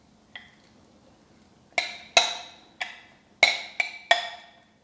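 Metal spoon clinking against a glass bowl while scooping out apple filling: one faint clink, then six sharp, ringing clinks in the last three seconds.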